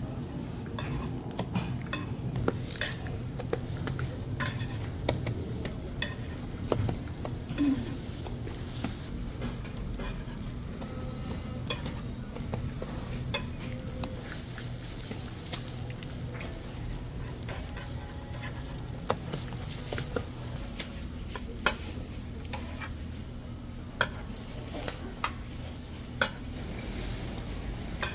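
Hotteok frying in oil on a griddle: a steady sizzle, with frequent sharp clicks and taps of metal utensils against the pan.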